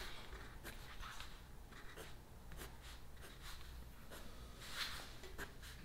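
Pencils scratching on paper in short, irregular strokes, over a faint low hum.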